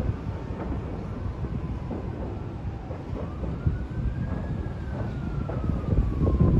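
Distant emergency siren wailing, its pitch rising slowly and then falling, over a steady low rumble of wind and city noise.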